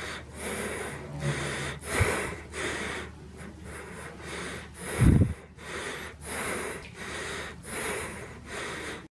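A person breathing heavily and fast close to the microphone, about two breaths a second, with a low thump about five seconds in.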